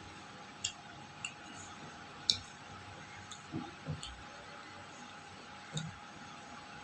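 Eating sounds: a handful of short, sharp clicks, the loudest about two seconds in, and a few soft low thuds, as someone eats a meal from a plate.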